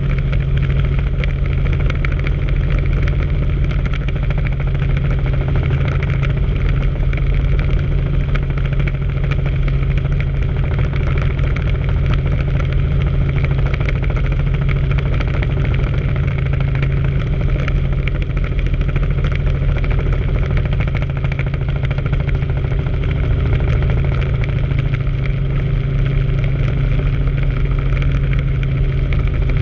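Helicopter in flight: steady engine and main-rotor drone.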